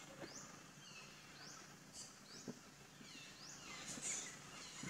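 A bird repeating short, high chirps that rise quickly in pitch, about one a second, over quiet forest ambience, with a louder, rougher call near the end. A soft tap or rustle about halfway through.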